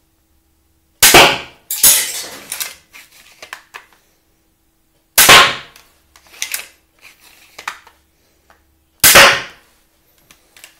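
An adderini repeating pistol crossbow firing three shots about four seconds apart, each a sharp, loud snap of the released string, the first followed closely by a second bang. Smaller clicks and rattles between the shots come from the lever being worked to cock the string and feed the next bolt from the magazine.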